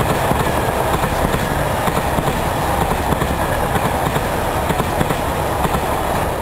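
Anpanman-painted JR Shikoku train passing close by: a steady rumble of wheels on rail with many quick clicks over the rail joints.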